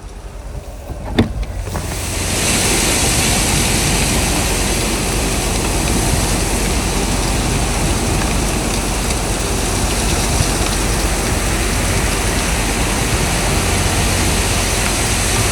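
Strong blizzard wind blowing, a loud steady rush with a low rumble that comes in about two seconds in, after a single sharp click.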